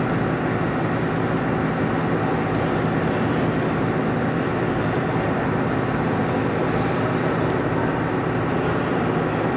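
A steady, even rumbling noise that does not change, with no distinct knocks or strokes standing out.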